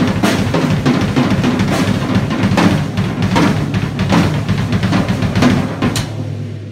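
Vintage 1981 Pearl drum kit with a Ludwig snare played in a busy improvised pattern of bass drum, snare, toms and cymbals, with fast strokes. A final hit comes about six seconds in, after which a low drum tone rings on and fades out.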